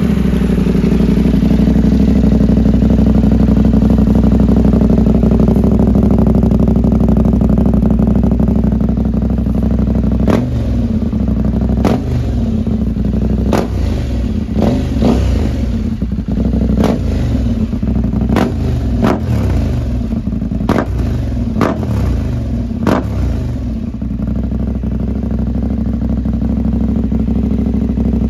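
KTM 890 Adventure's parallel-twin engine running loud through an Arrow exhaust with no dB-killer and the catalytic converter removed. It idles steadily, then from about ten seconds in gives a dozen or so short throttle blips, each with a sharp crack, roughly one every second, before settling back to idle.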